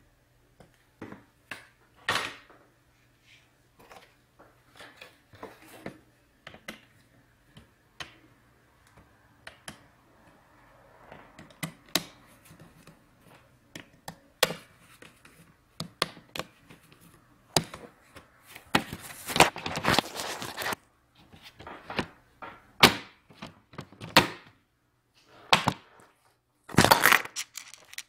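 Hand-work on an opened laptop: scattered clicks and taps of a screwdriver and parts at the M.2 SSD slot, then plastic clatter and knocks as the bottom cover is handled and the laptop is turned over. The louder knocks come in a cluster about two-thirds of the way through and again near the end.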